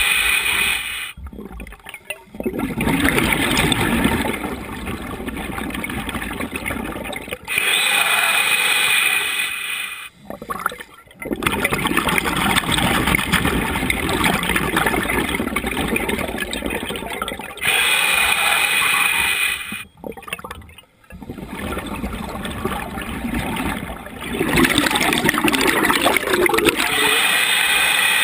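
Scuba diver breathing through a regulator underwater, in a slow cycle about every ten seconds: a short hissing inhale, a brief pause, then a long stream of bubbling exhaust.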